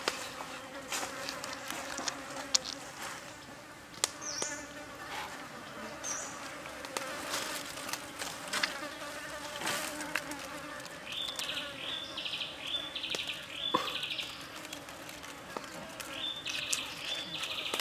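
A large knife slicing through squid onto a wooden chopping block, with a sharp knock now and then as the blade meets the wood. An insect buzzes throughout, and a high pulsed chirping comes and goes in the last third.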